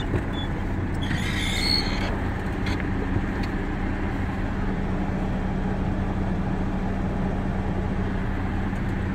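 Sterling truck's diesel engine idling steadily, heard from inside the cab, with a brief higher-pitched noise about a second in.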